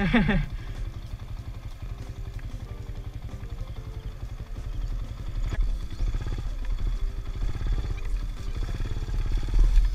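Modified Yamaha Sniper 150 single-cylinder four-stroke engine running at low speed while riding over grass, opening up a little about halfway through and again near the end.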